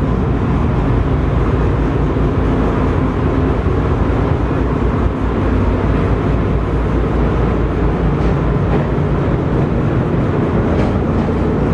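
A ferry's engine running with a steady low rumble, heard on board.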